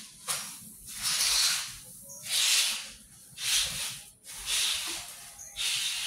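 Dry birdseed mix stirred by hand in a large plastic basin: a grainy rustling of seeds that swells about once a second as the hands sweep through it.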